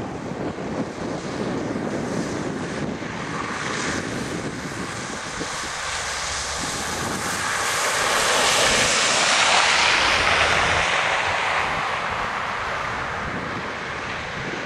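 A vehicle passing on a road covered in wet snow, its tyre hiss swelling to a peak about nine to ten seconds in and then fading, over a steady background rumble.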